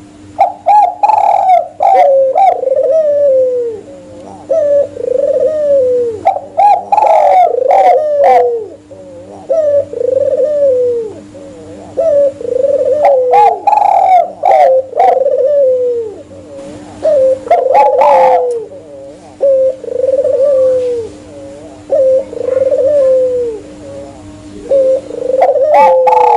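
Spotted dove and albino ring-necked dove cooing: phrases of falling coos that repeat every few seconds, with a steady low hum underneath.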